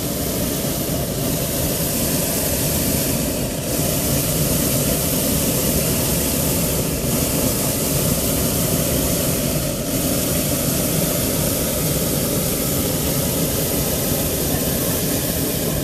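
Hot-air balloon's propane burner firing in one long, steady roar.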